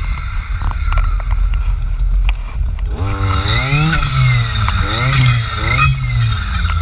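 Jonsered FC 2256 W clearing saw's two-stroke engine with a circular saw blade. It runs at low revs with a few sharp clicks for about three seconds, then is throttled up and down in quick bursts, about four times.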